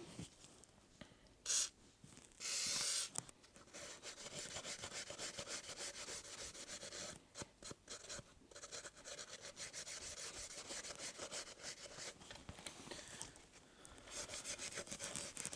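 Two short puffs of air as dust is blown out of a lathe part. Then a cloth is wiped back and forth over the metal in quick, even strokes, about four a second, pausing briefly near the end before starting again.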